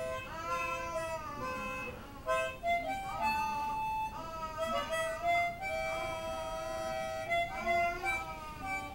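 Harmonica playing a slow melody of held notes and chords, with some notes bent in pitch.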